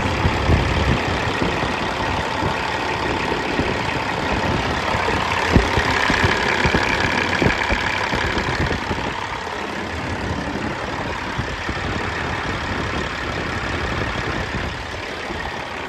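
Caterpillar 3406 diesel engine idling steadily, with a couple of sharp clicks about five and a half and seven and a half seconds in.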